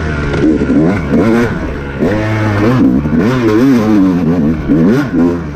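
Dirt bike engine under hard riding, revving up and down several times as the throttle is worked.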